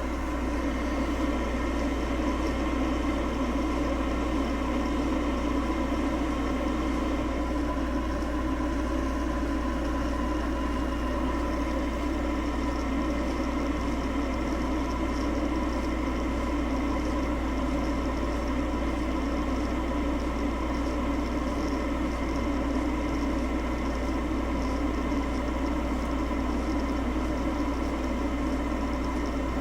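Gooseneck electric kettle heating water close to the boil, a steady even rumble with no break.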